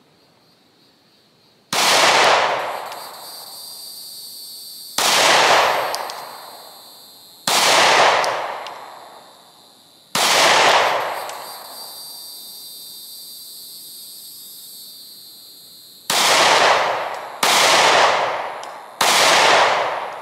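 Seven shots from a Glock 43X 9mm pistol, each echoing away over a second or two. Four are slow and evenly paced, then after a pause three come in quicker succession.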